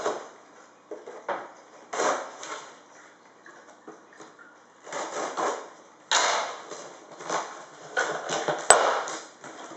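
Cardboard scraping and rustling in several separate bursts as a boxed product is unpacked: the printed outer sleeve slid off the box and the top flaps pulled open. One sharp click comes near the end.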